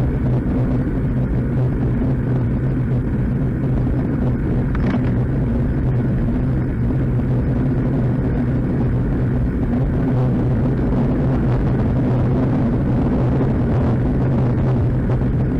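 Steady wind rumble and road noise on a bike-mounted action camera riding in a group of road cyclists, with a constant low hum.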